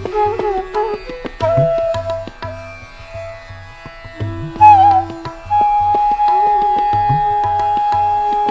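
Instrumental background music: repeating drum strokes under a melodic line that slides and ornaments between notes, then settles into one long held note about halfway through.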